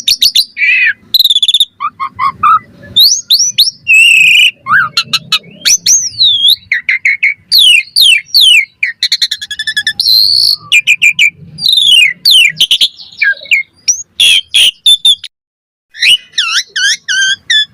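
Asian pied starling (jalak suren) singing vigorously, a fast varied song of rising and falling whistles, slurred notes and sharp clicks, with a brief pause about three-quarters of the way through.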